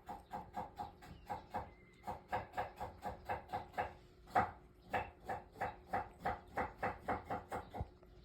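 A cat chattering: a fast run of short chirping clicks, about four a second, the sound a cat makes when it is fixed on birds.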